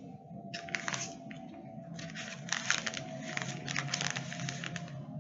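Rustling and crinkling of small items being handled, in irregular bursts from about half a second in and again from about two seconds in, over a faint steady hum.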